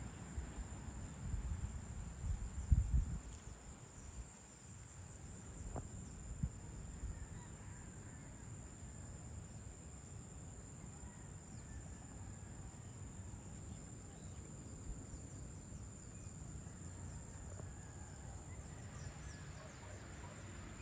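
Insects, crickets or cicadas, keeping up one steady high-pitched trill. Low gusts of wind rumble on the microphone in the first few seconds.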